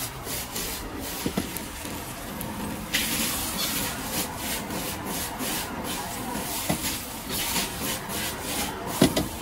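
Noodles stir-fried in a wok over a high gas flame: a metal ladle and spatula scrape and toss against the wok while the food sizzles. The sizzle turns louder and hissier about three seconds in, and a sharp metal clank stands out just after nine seconds.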